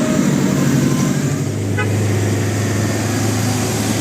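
Heavy vehicle engine running steadily with a low hum that grows stronger about one and a half seconds in.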